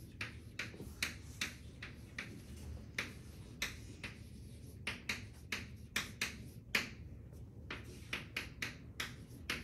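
Chalk tapping and scratching on a chalkboard as words are written: an irregular run of short, sharp strokes, about two to three a second, over a low room hum.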